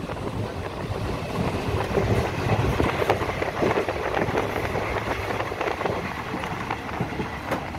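Passenger express train running on the track, heard from inside a coach: a steady rumble with many rattles and knocks, and wind blowing across the microphone.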